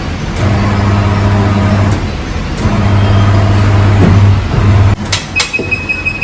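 An electric motor hums steadily in two spells of a second or two each, then two sharp clicks and a steady high-pitched tone that begins near the end.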